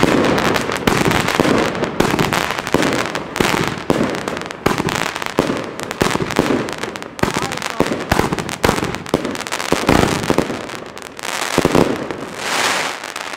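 Funke Chrysanthemum Rain Variations firework cake, 30 mm calibre, firing shot after shot in quick succession. Each shot bursts as a palm whose tails crackle densely, so sharp bangs and crackling run together.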